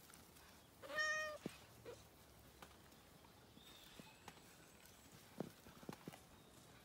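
A long-haired tabby cat gives one short meow about a second in, followed by a few faint clicks.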